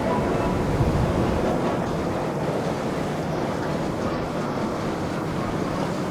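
Steady wash of water and boat engine rumble, with wind buffeting the microphone.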